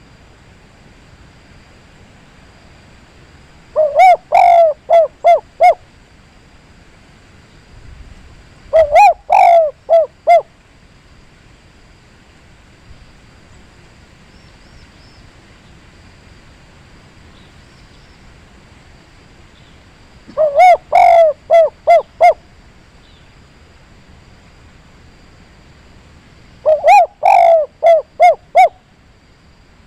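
A dove singing its 'kuk 3' coo: four phrases, each a quick run of about five or six low hooting notes lasting about two seconds, with long pauses between them.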